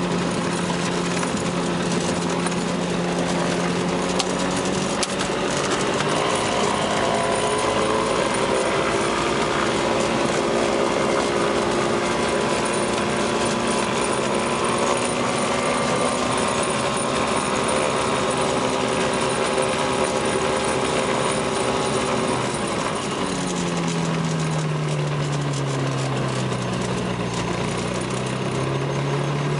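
FlightStar ultralight's two-stroke engine running while the aircraft taxis on grass. It revs up about six seconds in, holds there, drops back to a lower speed about three quarters of the way through, then begins to rise again near the end.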